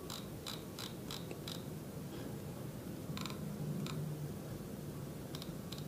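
Light clicks of a computer keyboard and mouse: a quick run of about five clicks in the first second and a half, one more about three seconds in and a few near the end, over a faint steady hum.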